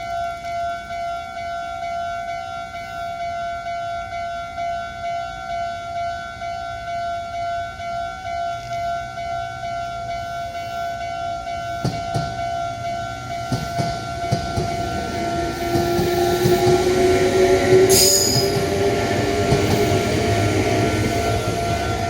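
Japanese level-crossing warning bell ringing in a steady, pulsing two-tone ding while an electric train passes close by. From about twelve seconds in, the wheels clatter over rail joints and the traction motors give a rising whine, loudest about eighteen seconds in.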